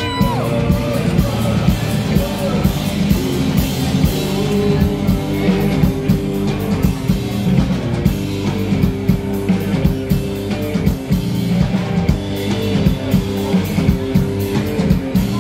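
Live band playing a stretch of music with drum kit and electric guitar to a steady beat, with little or no lead singing.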